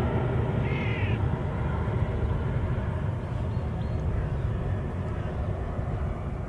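Propeller or jet airplane passing overhead, its engine drone slowly fading, with wind buffeting the microphone. A short bird call comes about a second in.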